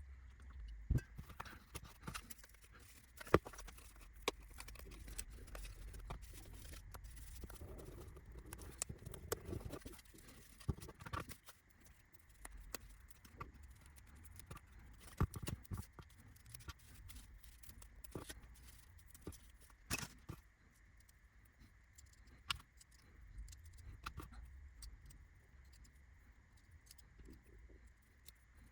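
Small laser-cut model kit parts being handled and worked on at a bench: scattered light clicks and taps at irregular intervals, the sharpest about three seconds in and near the middle, with soft rustling between.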